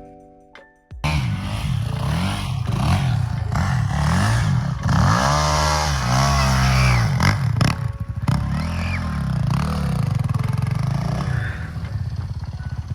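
Small dirt bike engine revving up and down over and over as it is ridden, its pitch rising and falling again and again. It cuts in abruptly about a second in, after a moment of music.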